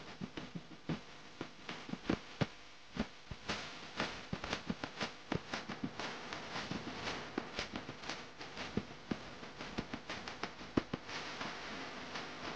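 Irregular clicks, taps and scrapes of a plastic cake scraper and palette knife working whipped cream against a glass cake turntable, several a second.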